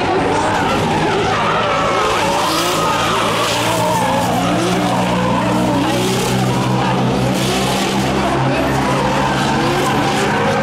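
Toyota Mark II and Mark X drift cars sliding in tandem. Their engines are held high in the revs, with the pitch wavering up and down as the throttle works, under a continuous screech of spinning, smoking tyres.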